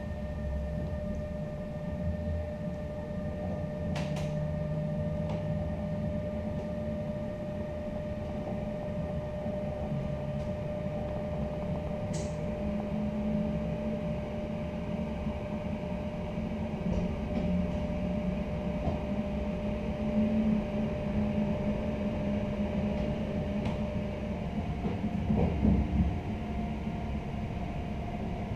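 Inside a passenger train coach's entrance vestibule: a steady electrical hum over a low rumble, with a single click about four seconds in and a short high chirp about twelve seconds in. The hum's pitch shifts near the end.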